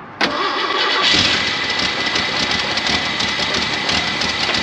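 Ford 300 cubic-inch inline-six starting up suddenly and then running steadily.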